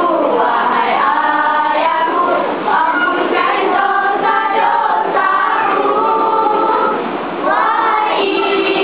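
A group of girls singing a song together, holding their notes, with short breaks between phrases.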